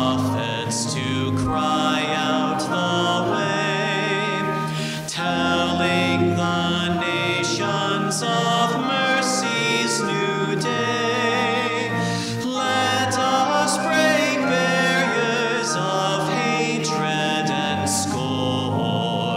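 Closing hymn: church organ with singers, the voices sung with vibrato over held low organ notes.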